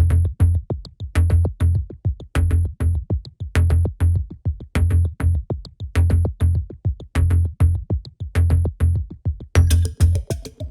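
Electronic background music with a steady drum-machine beat of deep bass thumps and crisp high hits; a busier layer joins near the end.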